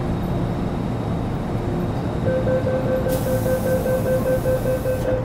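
Interior running noise of an MTR Metro Cammell M-Train (C167) on GEC GTO chopper traction, with a steady electrical whine from the chopper. About two seconds in, the whine jumps to a higher, louder tone and holds, and a hiss joins it for about two seconds in the middle.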